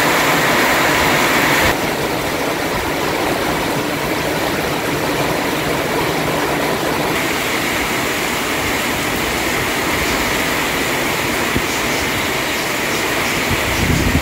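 Heavy rain falling steadily, an even, loud hiss of a downpour. About two seconds in, the sound shifts abruptly to a slightly quieter, duller wash.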